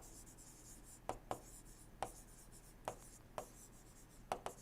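Pen writing on paper: faint, scattered scratches and taps, about seven short strokes.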